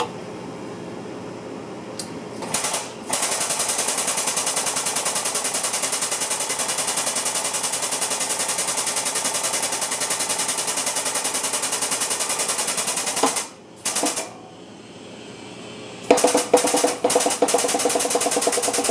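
Impact wrench hammering in a long run of about ten seconds, stopping, then starting again in shorter bursts near the end with a steady whine under the blows.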